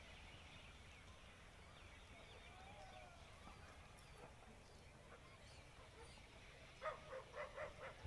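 Kalij pheasants calling faintly, then a quick run of about six clucking calls near the end.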